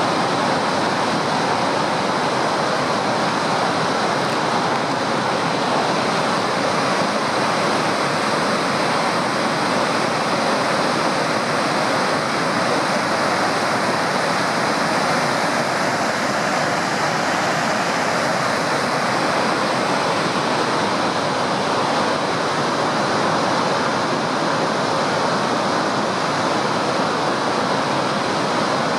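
Spokane River pouring over the Monroe Street Dam spillway and crashing onto the rocks below: a steady, loud rush of falling water.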